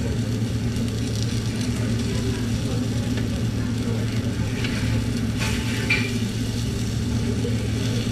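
Batter sizzling on a hot tabletop takoyaki griddle while metal picks tap and scrape in the pan, with a few sharp clicks about five and a half and six seconds in. A steady low hum runs underneath.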